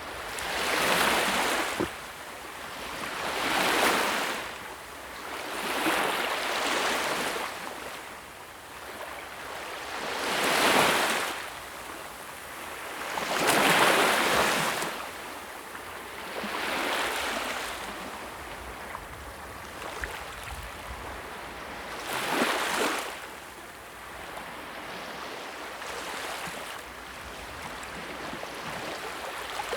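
Sea waves washing ashore: a rushing hiss that swells and falls back in about seven uneven surges a few seconds apart, the strongest near the middle.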